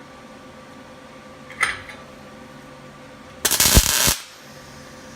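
Electric welding arc striking a tack weld on steel, crackling loudly for under a second about three and a half seconds in. A light tap comes about a second and a half in.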